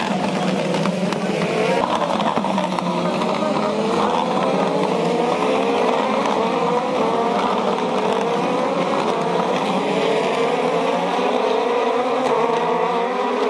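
A field of Super Formula single-seaters accelerating through a corner, their turbocharged 2.0-litre four-cylinder engines revving up through the gears. Many engine notes climb and overlap at once.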